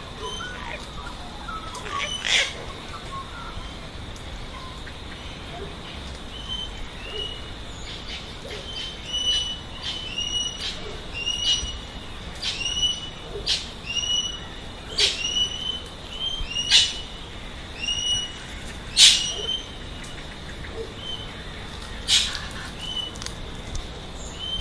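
Birds calling: a run of short, hooked chirps about once a second, broken now and then by a louder harsh screech, over a steady high tone.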